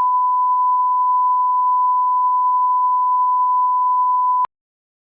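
Censor bleep: a single steady 1 kHz beep tone held for several seconds, then cutting off suddenly about four and a half seconds in.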